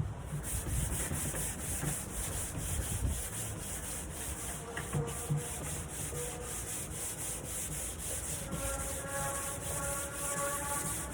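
Sanding the top of a wooden nightstand: a steady scratchy hiss of abrasive on wood, pulsing with each regular stroke.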